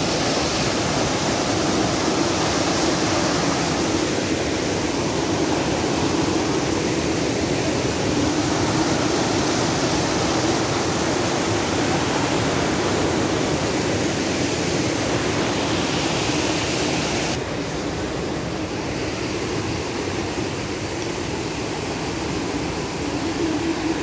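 Tomara Waterfall's water rushing down in a steady, even rush. About two-thirds of the way through, the hiss turns abruptly duller and slightly quieter.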